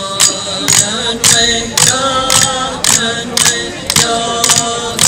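Voices chanting a song together over a sharp percussive strike repeated a little under twice a second.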